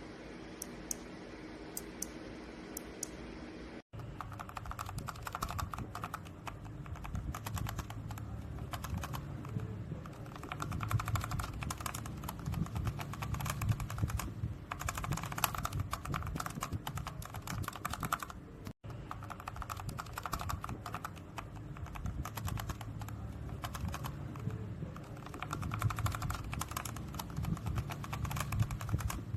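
Fast typing on a mechanical keyboard during a switch sound test: a dense, continuous run of keystroke clacks. The sound cuts out for an instant about four seconds in and again a little past halfway, and the typing carries on after each break; before the first cut there are only a few faint clicks.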